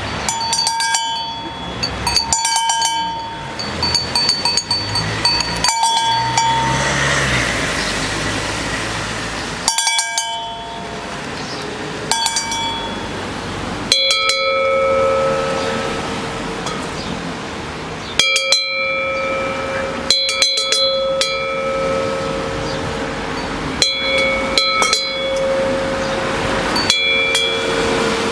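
Large hand-forged Alpine cowbells clanging over and over, every couple of seconds and unevenly spaced. Each clang rings on after it. The first clangs ring high, and from about halfway a bigger, deeper-toned bell takes over, since these bells sound different octaves according to their size and shape.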